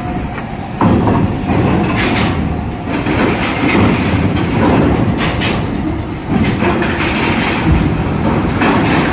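Car-carrier truck driving slowly over a ferry's steel loading ramp: engine and tyre rumble with clanking and rattling of steel plates, getting louder about a second in, with several sharp clanks along the way.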